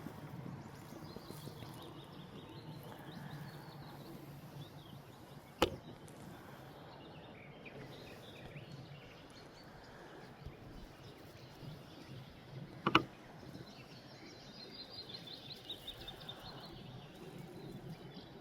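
Woodland ambience with songbirds singing short trilled phrases in the background, broken by two sharp clicks, one about a third of the way in and a louder one about two-thirds through.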